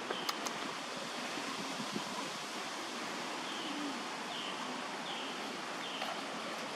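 Outdoor ambience: a steady hiss, with a couple of sharp clicks right at the start and a few faint short chirps in the second half.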